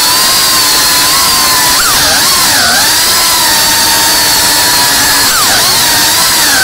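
FPV quadcopter's brushless motors and propellers whining in flight, the pitch shifting with throttle. The pitch holds steady for stretches and swoops down and back up about two seconds in and again a little after five seconds.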